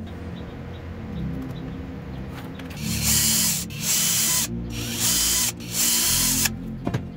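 Cordless drill running into an OSB board in three short bursts, starting about three seconds in, with brief pauses between them.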